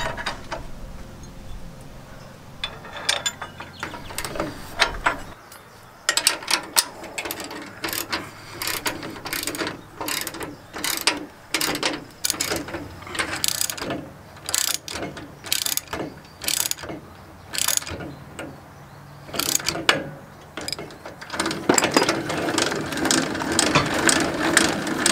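Hand ratchet wrench clicking in repeated strokes, about two a second, tightening the bolts that clamp a swing-up trailer jack's bracket to a boat trailer tongue. The clicking pauses briefly, then comes faster and denser near the end.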